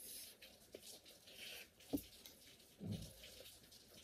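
Faint eating sounds of people chewing panipuri, with one sharp click about two seconds in and a duller soft knock about a second later.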